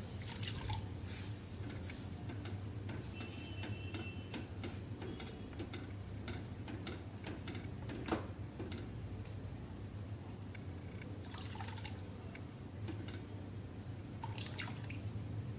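Milk poured a little at a time into a kadhai of roasted gram flour and dry-fruit mix while a spoon keeps stirring it, with liquid sounds and scattered light clicks and scrapes of the spoon on the pan over a low steady hum.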